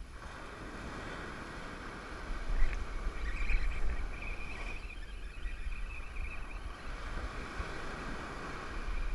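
Ocean surf breaking and washing up the beach, with wind rumbling on the microphone. The wash swells louder about three seconds in and eases off after.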